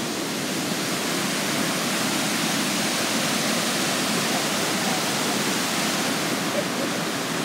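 Fast-flowing, muddy stream rushing over rocks: a steady, unbroken rush of water.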